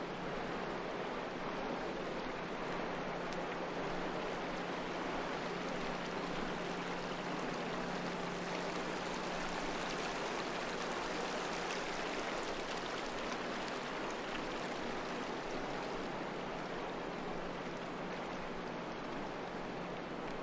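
Steady rushing wash of sea surf and wind along the shore, even and unbroken, with a faint steady low hum beneath it.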